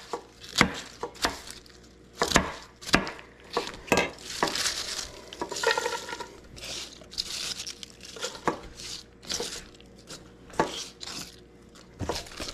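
Kitchen utensils knocking and scraping at irregular intervals as cabbage and sausage are prepared, with short spells of hiss in the middle.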